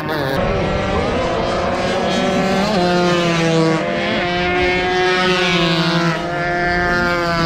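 Two-stroke 140cc sport motorcycles racing at high revs: several engines at once, their notes shifting up and down in pitch.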